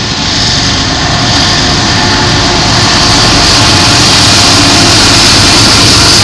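A GE ET44AC and a GE C40-9 diesel-electric locomotive passing close by at the head of a freight train, with a steady heavy diesel engine drone. The sound grows a little louder over the first few seconds as the units arrive.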